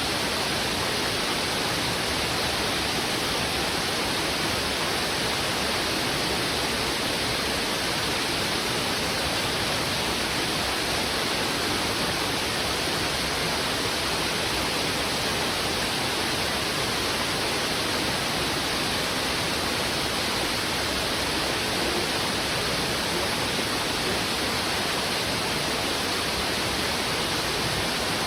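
River water rushing heavily over rocks: a steady, dense hiss that never rises or falls.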